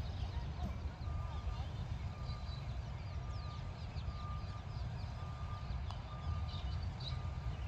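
A steady low rumble of wind on the microphone, with birds chirping in short falling notes and a thin high note that repeats about once a second.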